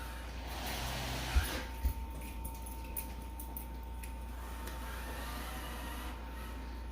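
Robot vacuum running with a child sitting on it: a steady hum with a thin steady whine, and two short knocks about a second and a half in. The load is more weight than the robot can handle.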